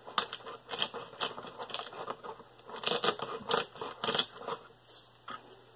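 Twist-top pepper grinder being turned by hand to grind pepper: rapid gritty clicking in two main bursts, with a shorter burst near the end.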